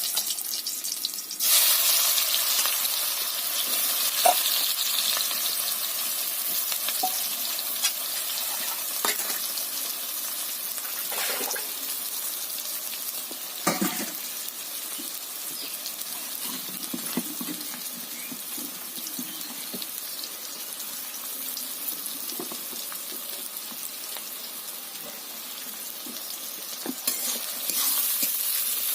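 Food sizzling in hot oil in a cooking pan, a steady hiss that grows louder about a second in and again near the end, with a few knocks and scrapes of a spoon stirring the pan.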